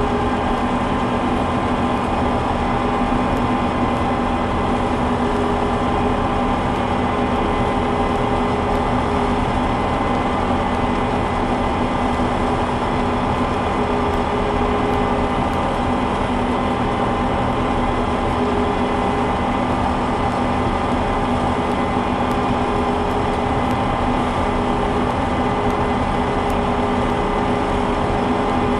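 Combine harvester running steadily while cutting soybeans with a full header, creeping along under load: an even machine drone with several steady tones.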